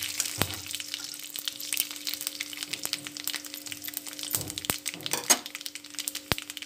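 Panch phoron, dried red chillies, garlic and curry leaves sizzling in hot oil in an iron kadai, with frequent sharp pops and crackles as the seeds burst. A wooden spatula stirs them near the start, and a faint steady hum runs underneath.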